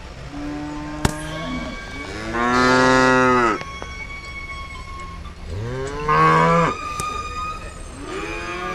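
Cattle mooing at a livestock market: a long, loud moo about two seconds in, a second one around six seconds, and a third beginning near the end. A single sharp click sounds about a second in.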